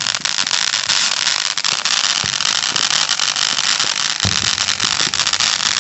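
A consumer firework spewing sparks with a loud steady hiss and crackle instead of bursting, which the onlookers take for a dud. There is a single low thump about four seconds in.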